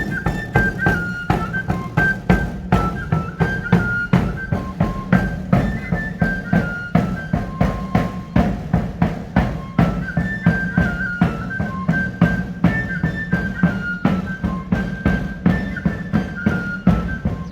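A drum beaten in a quick, even rhythm under a high flute melody of short repeated notes.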